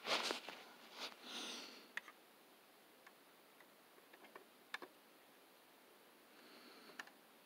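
Faint handling sounds of a 1:32-scale model semi truck being touched and moved by hand. A louder rustle comes near the start, followed by a scattering of small sharp clicks and taps.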